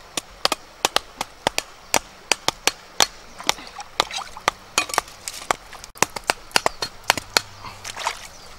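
A quick, uneven run of sharp knocks, about three to four a second, some much louder than others, like repeated chopping strikes.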